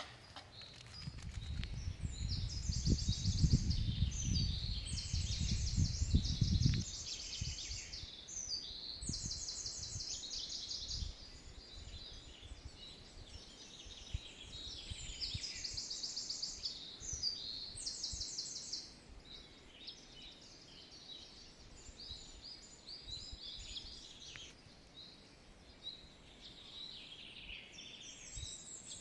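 Several songbirds singing, with fast high trills repeating through the first twenty seconds and scattered chirps after. A low rumble, the loudest thing, runs under the first seven seconds.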